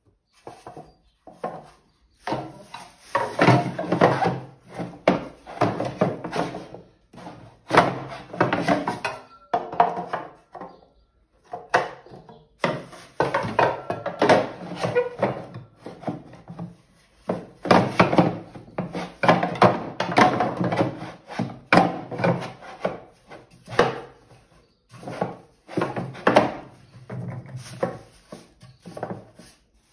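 A pottery wheel's two-piece plastic splash pan being handled and fitted around the wheel head: irregular scraping and rubbing of plastic on plastic with sharp knocks, in repeated bouts separated by short pauses.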